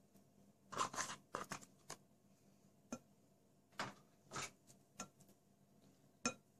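Wooden spatula scraping soft labneh cheese into a glass mixing bowl: a series of short, soft scrapes and taps about a second apart, with one sharper tap about six seconds in.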